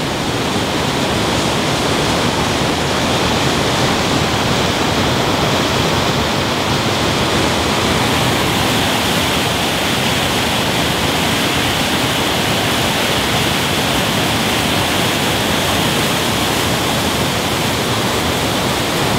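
Waterfall on a small mountain stream, its falling water making a loud, steady rush.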